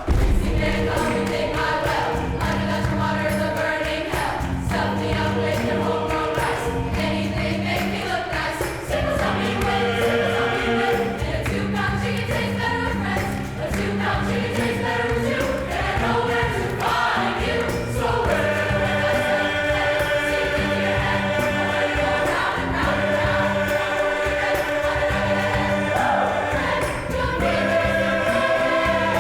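Large high school choir singing in parts, over a low figure that repeats about once a second. From about two-thirds of the way through, the voices hold long sustained chords.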